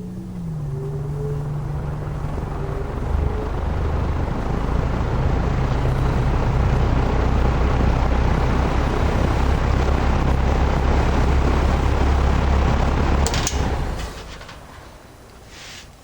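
Vintage metal-bladed Emerson box fan (model 746310-AW) starting up on low speed: the motor's low hum and the rush of air build over the first few seconds, then run steadily. Near the end a sharp click, and the air noise falls away as the fan is switched off and begins to spin down.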